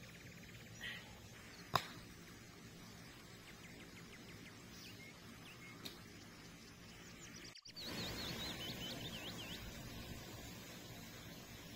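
Small birds chirping over quiet woodland background, with a single sharp click about two seconds in. Past halfway the sound drops out for an instant, then a quick run of short falling chirps follows.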